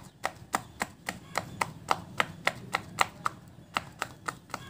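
Silicone pop-it fidget toy: a finger presses its bubbles one after another, each giving a short, sharp pop, about three to four pops a second.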